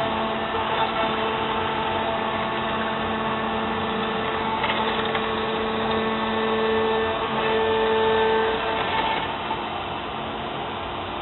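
Joe's 2006 CNC router milling 3/4-inch black HDPE with a 1/4-inch solid carbide O-flute spiral bit: a steady machine whine with several held tones over the noise of cutting. Some tones drop out and it gets a little quieter about nine seconds in.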